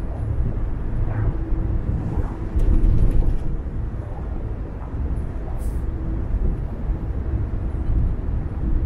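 Car driving on the road: a steady low rumble of tyre and engine noise.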